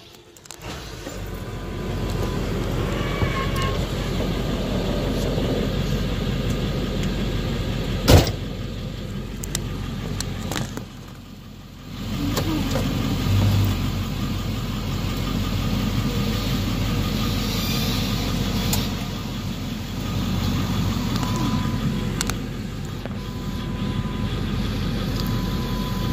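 Steady road and engine noise inside a moving car's cabin. There is a single sharp click about eight seconds in, and the noise drops briefly a few seconds later.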